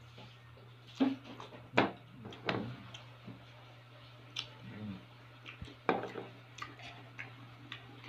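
Spoons and forks clinking and scraping against a ceramic bowl and plastic food containers while eating, in a scatter of sharp clinks and knocks. The loudest two come about one and two seconds in, over a steady low hum.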